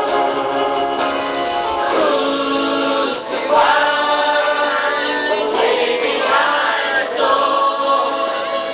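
Church worship singers, male and female voices, singing a gospel song over musical accompaniment.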